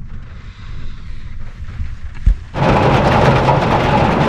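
Heavy rain on a van, heard from inside: a quieter low rumble at first, a single sharp thump about two seconds in, then the sound jumps to loud, steady rain drumming on the roof and windows.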